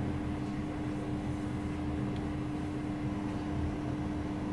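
Steady low hum with one constant tone running through it: a room's background machine noise.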